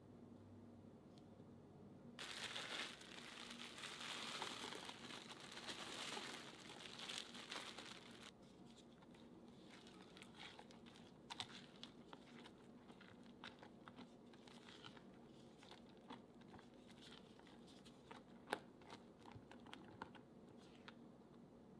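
Faint crinkling and crunching for about six seconds as crushed Oreo cookie crumbs are added to the bowl, then a silicone spatula folding them into cream cheese batter, with scattered light clicks against the glass bowl.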